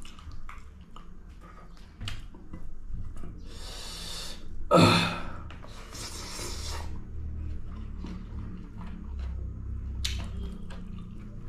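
Close-up chewing and mouth sounds of a person eating, with three loud, breathy sniffs or breaths through the middle, the second one the loudest.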